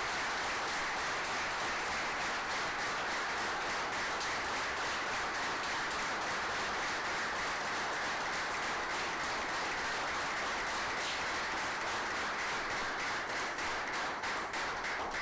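Small audience of a few dozen people applauding steadily. The applause stops right at the end.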